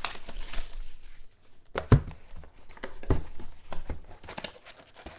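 Trading card box and packs handled on a table: scattered light taps and rustling, with two sharper knocks about two and three seconds in.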